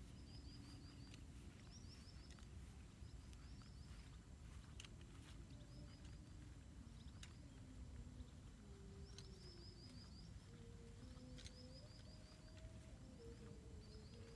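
Faint birdsong: short, rapid trills of high notes repeated every second or two, over a low steady background rumble.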